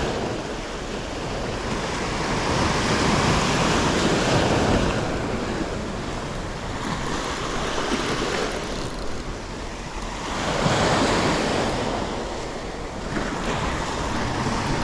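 Sea waves breaking and washing in, swelling and fading every few seconds, with wind on the microphone.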